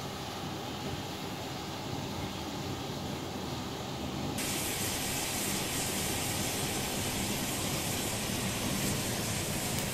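Homemade potassium nitrate and sugar smoke bombs burning with a steady hiss. About four seconds in, the hiss turns suddenly louder and brighter.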